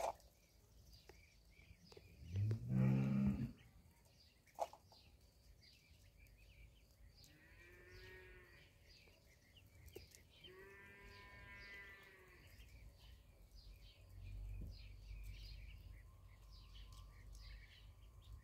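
A cow mooing: one loud low call that rises in pitch about two seconds in, with two fainter, higher drawn-out calls around eight and eleven seconds. Ducklings peep softly throughout, and a sharp knock comes just before five seconds.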